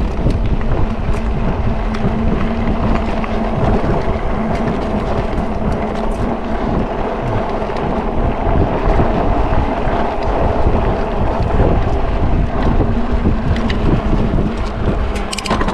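Wind buffeting the microphone while riding a Senada Drifter 750 W hub-motor fat-tyre electric bike over a dirt trail, with a steady hum from the hub motor under power and scattered clicks and rattles over the rough ground.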